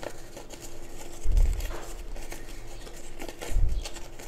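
Folded paper crinkling and rustling as a pleated paper fan is handled and opened out, with two dull thumps, about a second in and again near the end.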